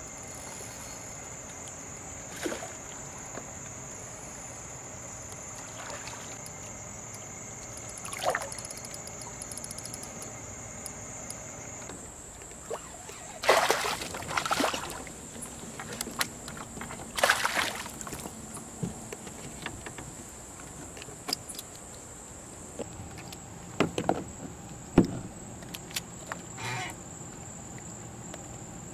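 Water splashing and sloshing beside a kayak in a few loud bursts, over a steady high chirring of night insects, with a couple of sharp knocks near the end.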